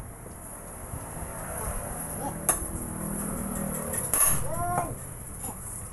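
Steel tools and truck steering-knuckle parts clinking and knocking on a concrete shop floor during a king pin replacement, with one sharp metallic knock about two and a half seconds in. A short pitched call is heard a little after four seconds.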